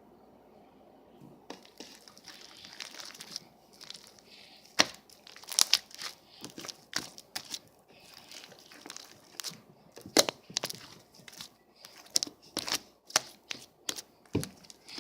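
Slime being squeezed and stretched by hand: a soft crinkling at first, then irregular sharp pops and clicks from about five seconds in.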